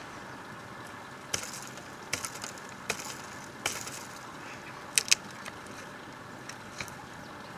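Dry woody branches cracking and snapping in sharp, irregular cracks, the two loudest in quick succession about five seconds in, over a steady background hiss.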